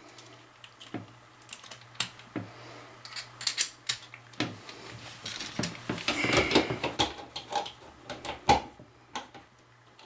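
Irregular clicks, taps and scrapes of a flat-head screwdriver and plastic outlet parts as a GFCI outlet and its cover plate are fitted and screwed to a wall box. There is a busier stretch of rubbing and clicking about six seconds in, and a sharp click at about eight and a half seconds.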